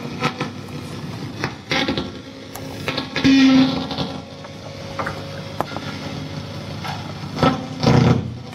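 Amplified electric guitar played as experimental noise: scraped, struck and buzzing sounds in irregular bursts with scattered clicks, rather than chords or a steady beat. There are louder bursts about three seconds in and again near the end.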